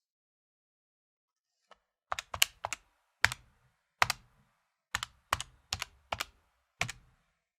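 Calculator keys being tapped by a finger, each press a sharp plastic click. About two seconds in comes a quick run of four presses, then single presses at roughly two a second.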